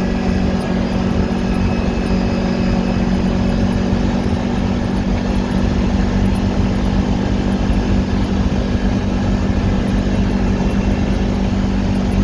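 Kawasaki 1000 ATV engine running at a steady cruising speed, an even drone with no revving, under low rumbling noise from the ride.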